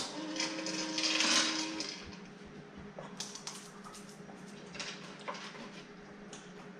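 Remote-controlled dog treat dispenser switching on with a click and running for about two seconds with a steady hum and a rattling hiss as it dispenses treats. Scattered light ticks follow, a pug's claws on a tile floor.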